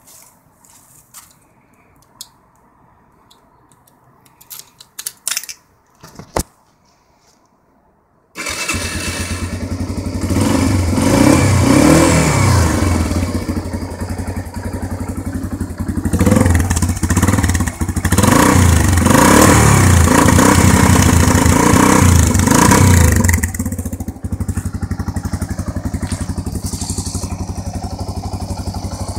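Rieju MRX 125 motorcycle engine catching about eight seconds in after a few faint clicks. It is revved up and down several times, then settles to a steady idle for the last few seconds.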